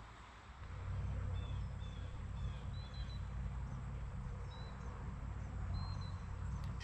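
Small birds giving a scattered series of short, high, whistled chirps over a steady low rumble.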